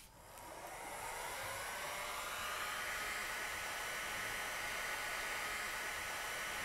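Hot air gun just switched on, its fan spinning up over about a second and then blowing steadily with a hiss and a faint whine, heating the ceramic adhesive to cure it.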